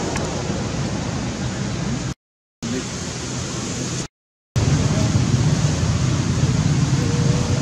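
Steady rushing noise with no distinct events, breaking off into silence twice for under half a second, a little past two seconds in and again around four seconds; after the second break it is louder and heavier in the low end.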